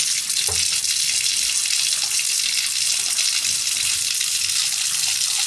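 Bathtub faucet running: a steady, unbroken stream of water pouring into the tub, heard as an even, bright hiss.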